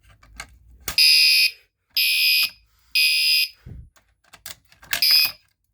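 Fire alarm pull station clicks, then a Gentex Commander 3 fire alarm horn on its normal horn tone sounds in the temporal code-3 pattern. It gives three half-second blasts a second apart, then a pause, and a fourth blast begins the next round near the end.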